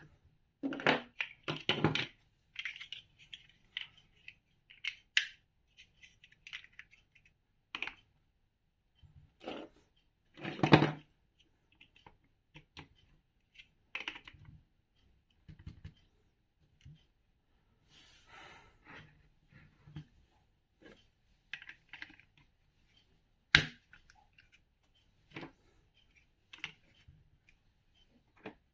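Plastic building bricks being handled and pressed together: irregular clicks, taps and short rustles with pauses between, and one sharp click about two-thirds of the way through.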